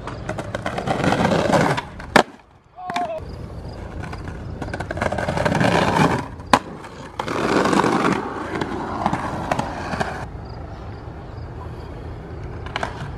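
Skateboard wheels rolling over rough concrete banks, with two sharp loud clacks of the board, about 2 seconds and 6.5 seconds in. The rolling fades to a quieter steady background near the end.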